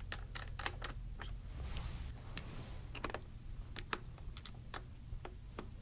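Scattered light clicks and taps of small camera parts being handled, as the eyepiece is unscrewed from an Arriflex SR3 viewfinder and the extension eyepiece tube is brought up to it. A faint steady low hum runs underneath.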